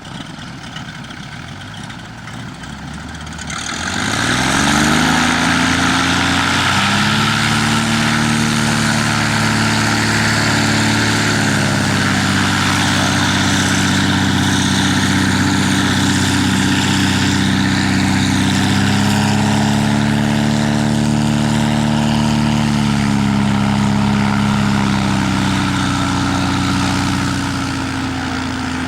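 Cessna Agwagon topdressing plane's piston engine and propeller, running low at first, then opened up about three to four seconds in, its pitch climbing to a loud, steady high-power note that wavers slowly. The power eases back slightly near the end.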